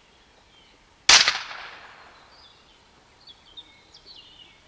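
A single shot from a regulated .22 PCP air pistol built on a Huben K1 bullpup action: one sharp crack about a second in, with a tail that fades over nearly a second. Birds chirp faintly in the background.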